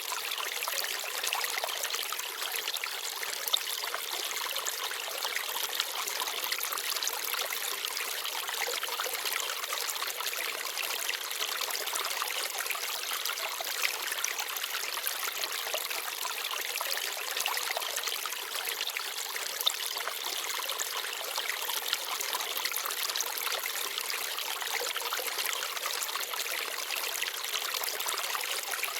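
Small forest stream babbling and trickling over stones, a steady rush of water with a few brief louder splashes.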